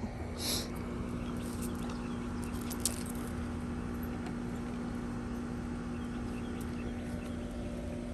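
A steady low mechanical hum holding one constant tone, with a short hiss about half a second in and a few light clicks around three seconds in.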